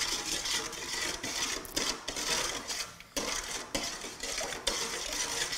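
A spoon stirring and scraping through a runny dough mixture in a stainless steel mixing bowl, with small metallic clinks and scrapes as cream is spooned in.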